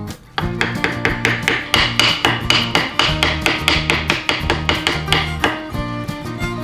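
Background music with guitar, and over it a fast, even series of sharp taps, about five a second, that starts about half a second in and stops near the end.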